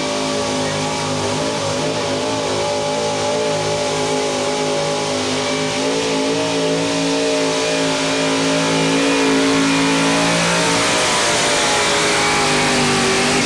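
Chevrolet Silverado super stock pulling truck's engine held flat out at high revs, loud and steady in pitch, under full load while dragging a weight-transfer sled.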